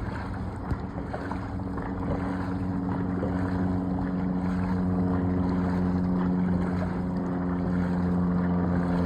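A motorboat engine running at a steady pitch, coming in about two seconds in and slowly getting louder, over wind and water noise.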